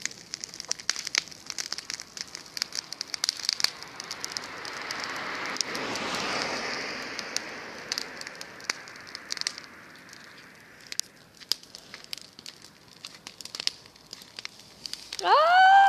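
Burning pile of dry grass and hay crackling with many sharp pops, the fire's noise swelling about six seconds in. Near the end comes a short, loud cry that rises in pitch and then holds.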